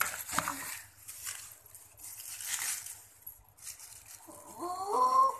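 Clear plastic packaging rustling and crinkling in irregular bursts as parts are unwrapped. Near the end a child's drawn-out voice rises in pitch and is the loudest sound.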